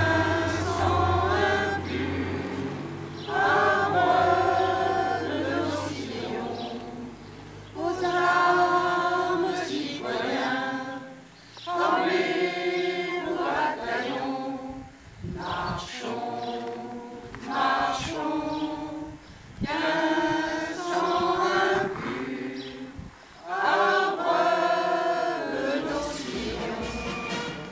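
A group of voices singing a song together, in phrases of about two seconds with short breaks between them.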